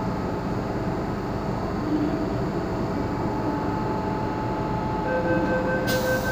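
Steady hum of a stopped Hong Kong MTR M-Train, its doors standing open. About five seconds in, the train's door-closing warning starts: a rapid beeping on two pitches that keeps going as the doors begin to slide shut.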